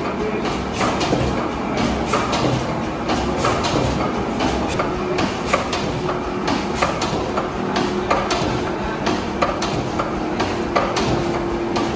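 Large stationary gas engine running, with a dense, steady clatter of mechanical knocks over its low running hum.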